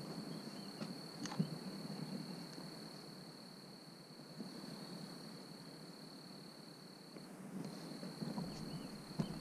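An insect trilling steadily on one high-pitched tone, breaking off briefly about seven seconds in, over faint outdoor background noise with a couple of small clicks.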